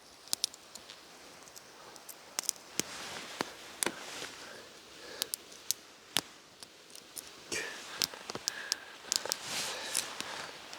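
Small cedar-kindling campfire crackling, with irregular sharp pops and snaps over a soft hiss.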